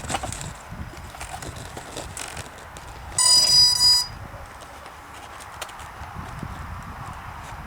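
A single electronic beep, one steady high tone lasting just under a second, about three seconds in, among scattered small clicks of handling.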